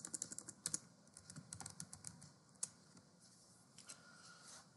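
Typing on a computer keyboard: a quick run of keystrokes at the start, then scattered single key presses that thin out.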